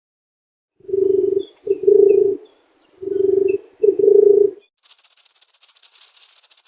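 A bird cooing: four low coos in two pairs. About five seconds in, a dry, fast, high rattling hiss follows.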